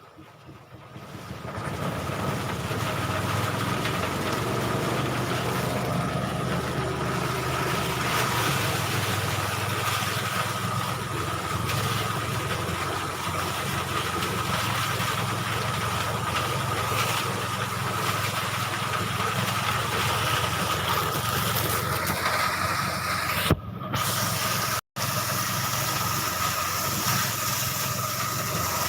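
Engine-driven rice threshing machine running steadily: an engine drone with a steady high whine over it, building up over the first couple of seconds. The sound breaks off briefly twice near the end.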